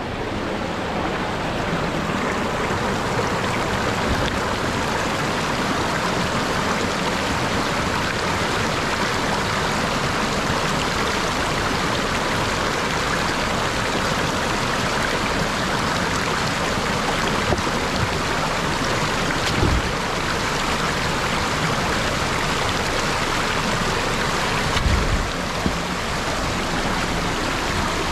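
Shallow rocky stream rushing steadily over stones, close by. Two brief low thumps stand out, about twenty and twenty-five seconds in.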